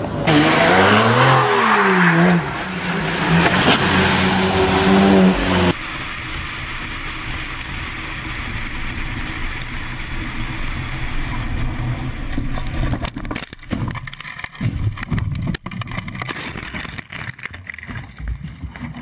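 A car engine revving hard, its pitch rising and falling several times, cut off suddenly after about six seconds. After it comes steady engine and road noise inside a moving car, broken in the last few seconds by irregular knocks and rattles.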